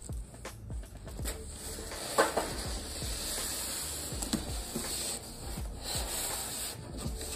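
Cardboard box and styrofoam packing rubbing and scraping as a lamp in its foam block is worked out of the carton, with small knocks and one sharper knock about two seconds in.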